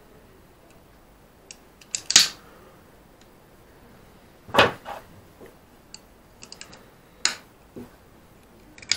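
Small tools clicking and tapping against the parts of an opened hard drive during repair: a series of sharp, irregular clicks, loudest about two seconds in and again about four and a half seconds in.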